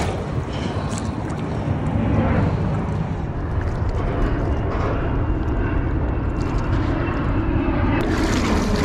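Wind buffeting the microphone over water washing against a boat's hull, with a short splash near the start as a released leopard shark swims off.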